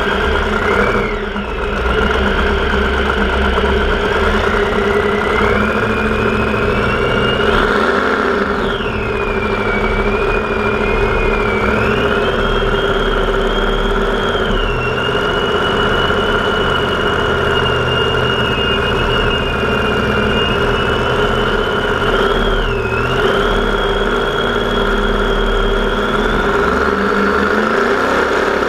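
Racing catamaran powerboat's engine running at speed. Its whine climbs and dips several times as the throttle changes, rising near the end, over wind rushing across the onboard microphone.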